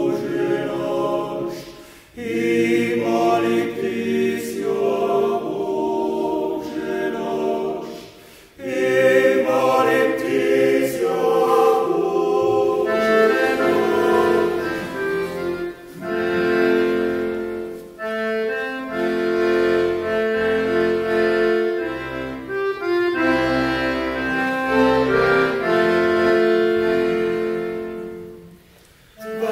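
Swiss yodel club choir singing slow, sustained chords in phrases, with brief breaths between them. A church's reverberant acoustics colour the sound.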